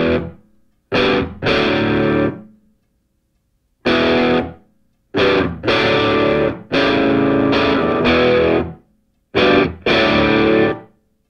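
Background music: distorted electric guitar chords played in short bursts that stop abruptly, with brief silences between them.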